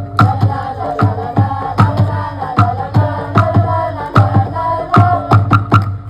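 Music: chant-like group singing over a steady drum beat of about two to three strokes a second.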